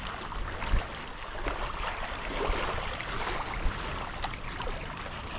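Water washing and lapping around rocks as a steady noisy wash, with scattered faint clicks and a soft low knock a little under a second in.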